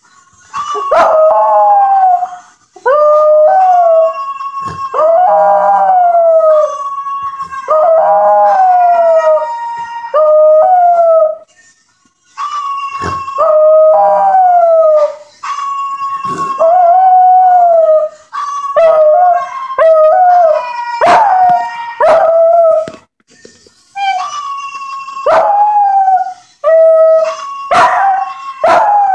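Jack Russell terrier howling along to a parrot clip played on a phone. It gives a long run of loud drawn-out howls, each a second or two long and many falling in pitch, with short breaks between them.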